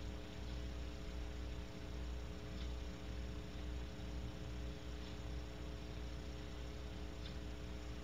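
Steady electrical hum and hiss from a nest-box camera's audio pickup, several fixed humming tones over a low rumble. A few faint ticks come through about every two to three seconds.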